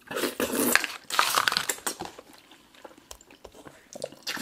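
Close-up wet slurping and sucking of Jello shots and Jello strips being eaten fast, in busy bursts for the first two seconds, then softer mouth smacks and clicks.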